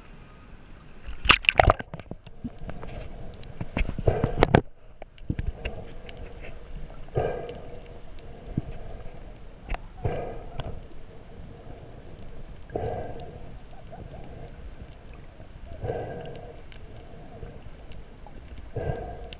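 Water splashing around an action camera as it is dunked under the surface, then muffled underwater water surges recurring about every three seconds.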